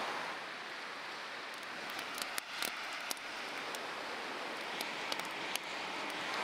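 Bacon sizzling in a pan over a campfire: a steady hiss dotted with small crackles and pops.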